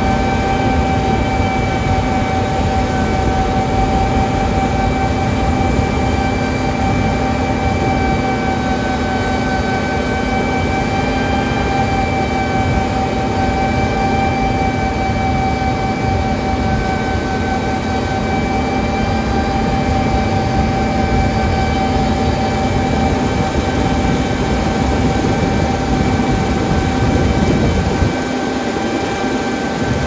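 John Deere combine harvester with a MacDon draper header running while it cuts wheat: a steady mechanical drone with a high, even whine over it. The low rumble thins slightly near the end.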